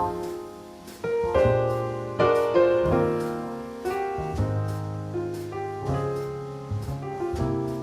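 Background music led by piano, with notes struck in phrases over a low bass line.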